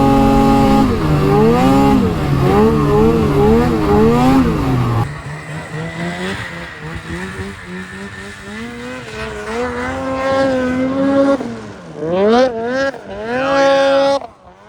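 Two-stroke snowmobile engine revving up and down, its pitch swinging repeatedly as the throttle is worked. About five seconds in, the sound drops abruptly to a quieter engine that rises and falls in pitch, then revs up hard twice near the end.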